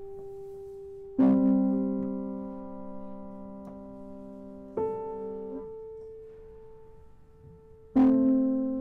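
Grand piano playing slow, sparse chords: three chords struck about a second, five seconds and eight seconds in, the middle one softer, each held and left to ring out and fade.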